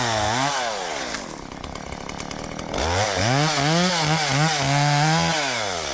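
Gas chainsaw revving: two quick throttle blips, then about two seconds lower at idle, then revved up again in several quick blips and held at high speed before dropping back near the end.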